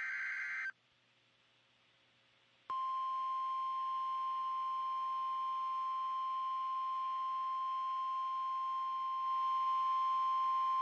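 The tail of a NOAA Weather Radio SAME header, a short warbling data buzz, then a pause. About three seconds in, the steady single-pitched 1050 Hz warning alarm tone starts and holds, signalling a warning-level alert about to be read.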